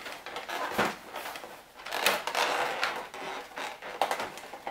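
A cardboard advent calendar door being pried and torn open by hand: cardboard scraping and rubbing, with a few sharp tearing snaps.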